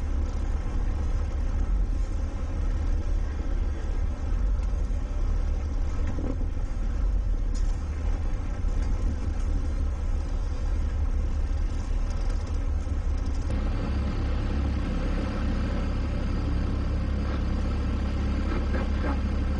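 Small towboat's engine running steadily under load while towing, heard as a low rumble with wind and water noise. About two-thirds of the way through it settles into a steadier engine hum, as heard from inside the wheelhouse.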